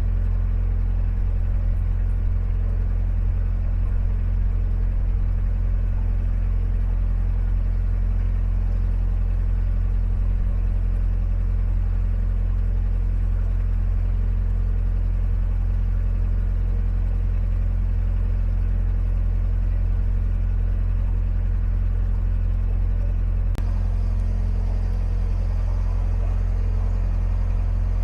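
Narrowboat's inboard diesel engine running steadily at cruising speed, with a low rumble of wind on the microphone.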